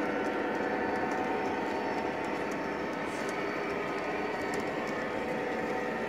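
O gauge model train running around the layout: a steady electric motor hum with the rumble of wheels on the rails and faint irregular clicking.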